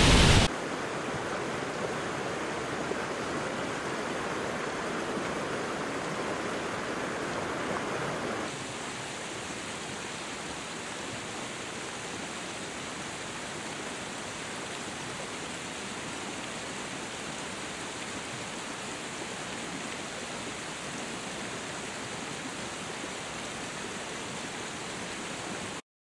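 Waterfall's steady rush of falling water. It drops a little in level just after the start and again about eight seconds in, and stops abruptly at the very end.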